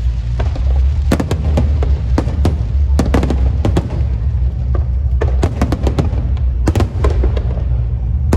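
Fireworks and firecrackers going off in rapid, irregular clusters of sharp bangs over a continuous deep rumble.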